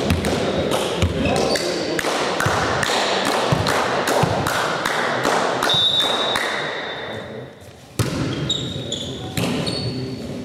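Volleyball play in a sports hall: a ball bouncing on the floor and thuds of hits, with short high squeaks from sneakers on the hall floor and voices echoing in the hall. After a brief lull, a sharp ball strike comes about eight seconds in.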